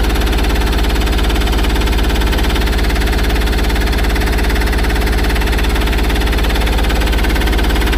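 Mahindra Supro's freshly rebuilt two-cylinder turbo-diesel engine idling steadily while warming up. It makes a lot of noise, which the mechanic puts down to a cut engine mounting.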